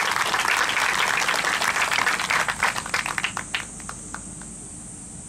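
Golf gallery applauding a player's introduction on the tee. The crowd's clapping thins to a few scattered claps and dies out about four seconds in.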